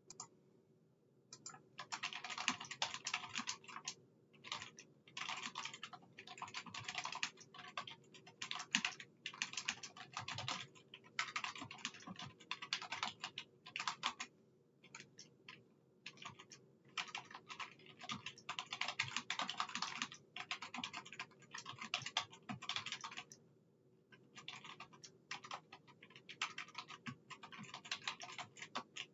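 Typing on a computer keyboard: rapid keystrokes in runs of a few seconds, broken by short pauses.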